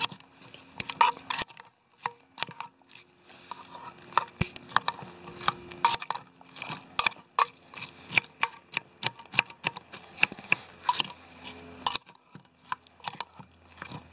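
A spork stirring rice and steak fajita filling in a metal canteen cup, with many irregular clinks and scrapes against the cup.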